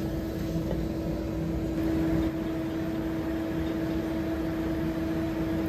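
Haas ST20Y CNC lathe running with its spindle turning a steel pipe in the chuck: a steady machine hum with one constant tone.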